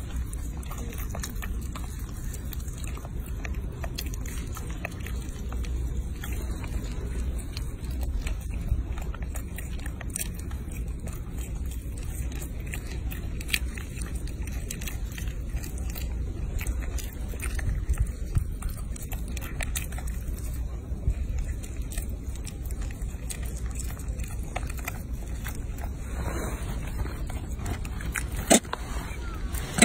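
Young macaques biting and chewing soft food held close by: many small clicks and crackles over a steady low rumble, with one sharper click near the end.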